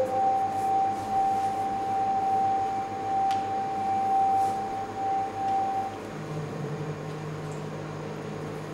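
A steady high pure tone is held for about six seconds and then stops. A lower, wavering hum takes over for the rest of the time.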